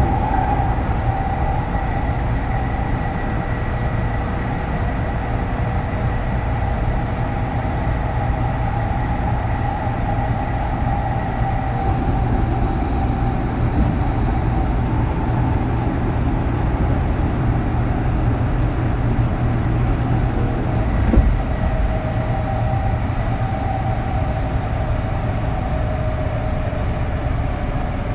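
Kintetsu 3200 series motor car running, heard from inside: wheel and track rumble under a steady whine from the Mitsubishi early-type GTO VVVF inverter and traction motors, a set known for its unusual groaning inverter sound. The whine's pitch holds almost level, shifting slightly past the middle, with a single knock about 21 seconds in.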